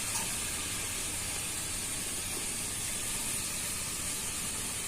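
Parshe fish curry in yogurt gravy sizzling and simmering steadily in the kadai, a little white oil having been drizzled over the top in the last stage before it comes off the heat.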